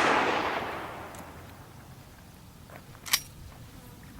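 The echo of a shotgun blast fading away over the first second and a half. A single sharp click follows about three seconds in.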